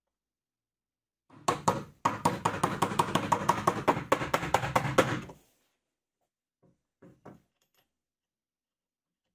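Plywood jig block sliding along its wooden rail base: wood-on-wood scraping with a fast, even run of clicks over a low rumble for about four seconds, then stopping suddenly. A few light knocks follow.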